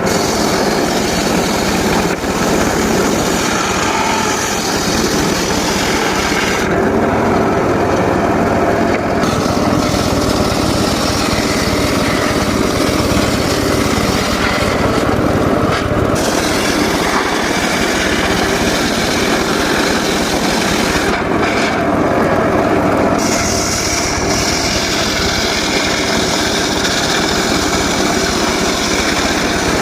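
Homemade circular saw rig running steadily while ripping teak, with the hiss of the blade in the wood under a constant machine note. The high cutting hiss drops away briefly twice, about 7 and 21 seconds in.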